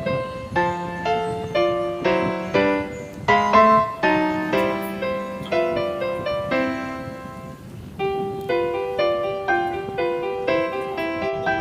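Piano music: a melody of struck notes that fades on a held chord, then starts up again about eight seconds in.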